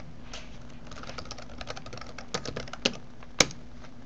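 Typing on a computer keyboard: a quick, uneven run of keystrokes entering a web address, ending with one louder keystroke about three and a half seconds in.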